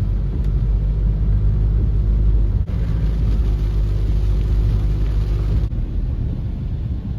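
Car driving through flood water on a road: a steady low rumble of engine and tyres, with a rushing hiss from about three to six seconds in.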